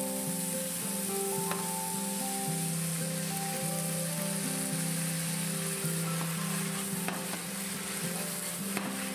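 Stir-fry sizzling in a hot frying pan as beef liver, bean sprouts and garlic chives are tossed over high heat, with a few clicks of the spatula against the pan.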